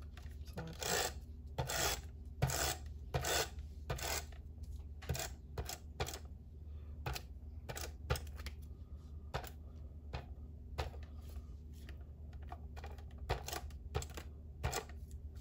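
Handheld adhesive tape runner laying short strips of tape onto cardstock: a series of short clicks and rasps, about two a second at first, then more scattered.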